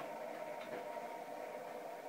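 Steady mechanical hum with a few level tones, and a faint light tap about half a second in.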